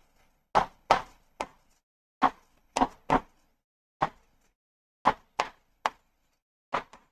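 Marker pen tapping against a writing board as numbers and words are written: about a dozen short, sharp taps in irregular clusters.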